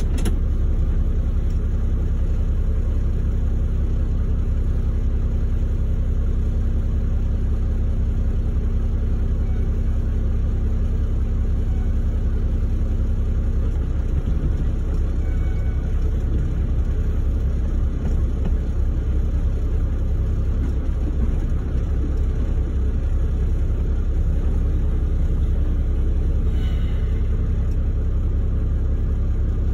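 Steady low rumble inside a log truck's cab while the truck is being loaded, with a short click right at the start.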